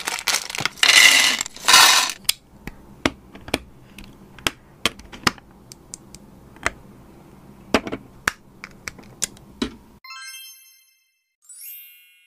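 A plastic bag of building-brick pieces crinkling as it is torn open, then small plastic bricks clicked together and set down one at a time, each a sharp separate click. Near the end comes a short, bright chime sound effect.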